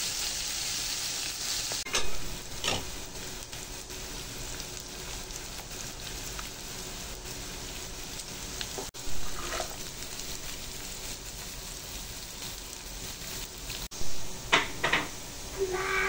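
Chicken pieces sizzling in hot oil in a pan, a steady hiss, with a spatula scraping and stirring in occasional strokes, the loudest near the end.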